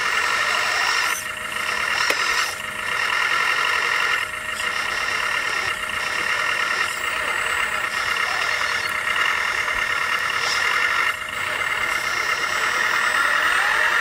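1/14-scale RC construction machines running, with a steady whine from their electric drive motors and hydraulic pumps that dips briefly about four times.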